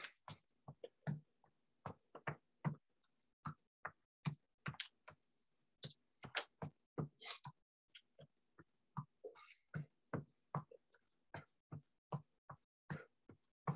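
A person doing an aerobics routine, heard as quiet, irregular short puffs and taps, about two or three a second, each cut off short with silence between.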